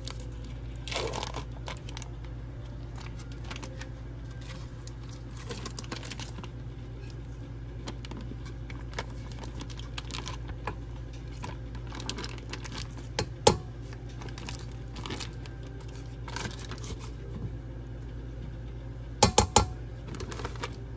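Crinkling and tearing of cream cheese packaging as the blocks are unwrapped and emptied into a mixing bowl, with scattered small clicks over a steady low hum. A single sharp knock comes about two-thirds of the way in, and three quick sharp knocks come near the end.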